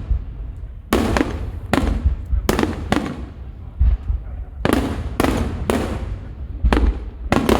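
Starmine aerial firework shells bursting in rapid succession: about nine sharp bangs, each trailing off in an echo, coming in two quick clusters with a short lull between, over a steady deep rumble.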